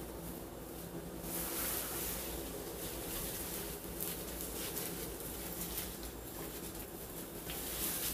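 Plastic cape and gloved hands rustling and crinkling in uneven patches as cream is worked through the hair, over a steady low hum.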